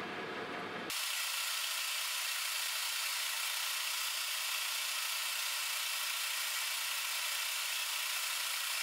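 Metal lathe running while a twist drill in the tailstock chuck bores into a spinning metal pin: a steady whir and hiss. About a second in the sound changes abruptly and loses its low rumble, leaving only the high whir.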